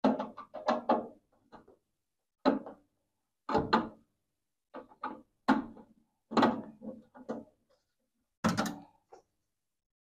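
Short knocks and clatters from a metal inverter casing and its screws being handled while it is unscrewed and opened, about a dozen separate hits with pauses between.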